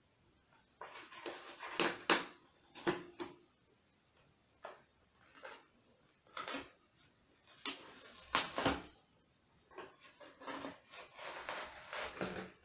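A cat shifting about inside a cardboard box, its claws and body scratching and rustling against the cardboard in irregular bursts.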